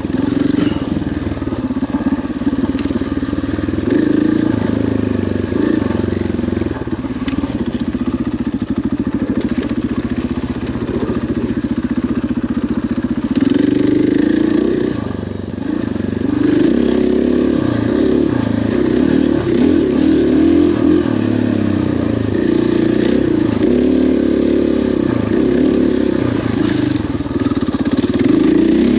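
KTM 500 XCF-W dirt bike's single-cylinder four-stroke engine riding a trail, the revs rising and falling with the throttle. The engine briefly drops off about halfway through, then pulls again.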